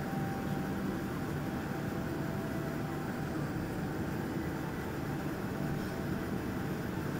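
Steady cabin noise inside a jet airliner taxiing on the ground: engines running at low power and the low rumble of the airframe, with a faint whine that fades away in the first few seconds.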